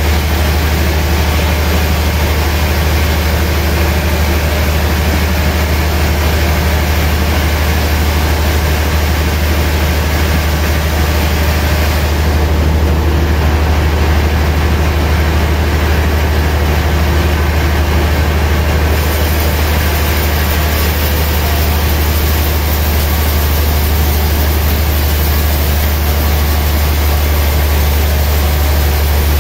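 Large sawmill band saw running and cutting through a gayam log, a loud, steady drone with a deep hum underneath and a hiss of the blade in the wood. The higher hiss eases for a few seconds in the middle.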